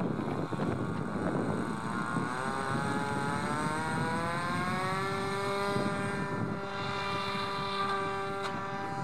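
Electric motor and propeller of a home-built radio-controlled model aircraft whining as the throttle opens for the take-off run. The pitch rises for about three seconds, then holds steady as the plane lifts off, over a steady low rushing noise. The whine fades out near the end.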